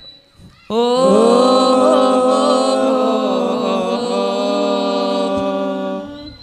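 A group of male students chanting Arabic nadhom verse a cappella into microphones. They hold one long, ornamented note that starts suddenly just under a second in and fades out near the end.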